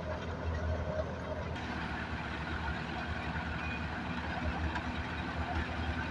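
Tractor's diesel engine driving a wheat thresher, running steadily under load with a constant low throb and the rushing of the threshing machinery.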